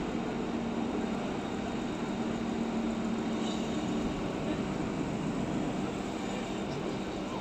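Cabin noise of a 2019 MAN Lion's City CNG city bus under way: the gas engine and driveline give a steady hum over road noise.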